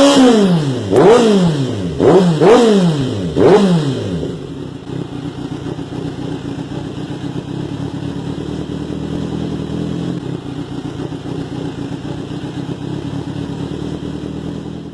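Kawasaki Z900 inline-four with an Austin Racing aftermarket exhaust, revved in about five quick throttle blips over the first four seconds, then settling to a steady idle.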